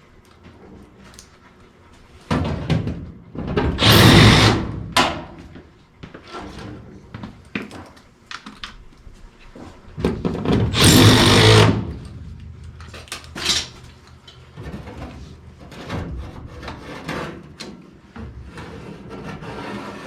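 Cordless screw gun driving screws into sheet metal, in two loud runs of a couple of seconds each, a few seconds in and again near the middle, with a short burst and scattered knocks after. The screws fasten a replacement heat exchanger into the furnace.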